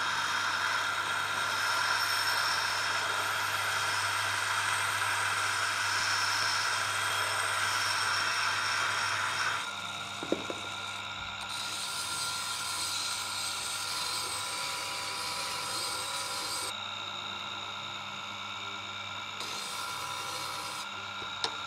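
Tormek T-7 water-cooled sharpening machine running with a steady motor hum. For about the first ten seconds the stone grader is rubbed against the wet grindstone to dress it for a rough grind, a rasping scrape that then stops. After that a chisel held in the jig is ground on the wet stone, with a hissing grind that comes and goes.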